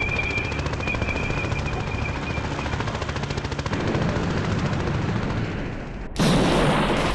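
Rapid automatic gunfire as a film sound effect: one long continuous rattle of shots, then a sudden, louder noisy blast about six seconds in.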